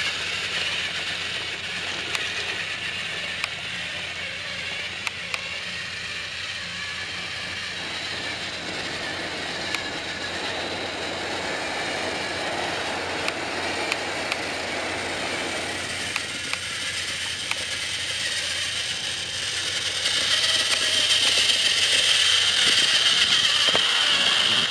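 Battery-powered TrackMaster toy train engines running on plastic track: a steady whirring gear motor with a high whine and occasional light clicks. It grows louder about twenty seconds in as an engine passes close.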